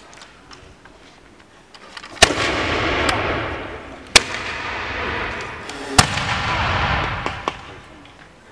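Three black-powder musket shots about two seconds apart, each a sharp crack followed by a long rolling echo.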